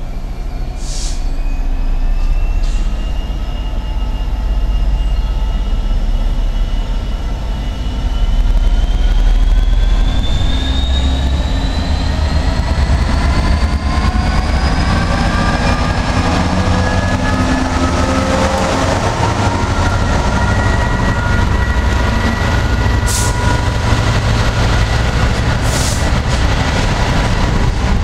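Freightliner Class 66 diesel-electric locomotive approaching and passing, a deep engine rumble under several whining tones that rise in pitch over the first half. Then the steady rolling rumble of its box wagons going by, with a couple of sharp wheel knocks near the end.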